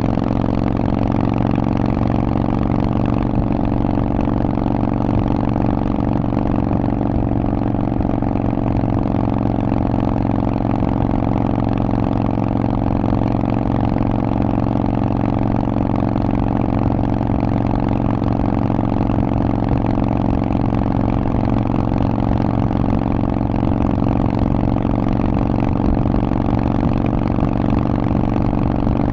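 Harley-Davidson Forty-Eight's air-cooled 1200 cc Evolution V-twin running through a Vance & Hines aftermarket exhaust, holding a steady, unchanging engine speed.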